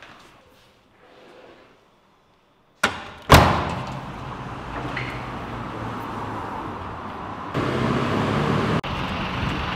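Two sharp knocks close together about three seconds in, then steady city street traffic noise that grows louder later on.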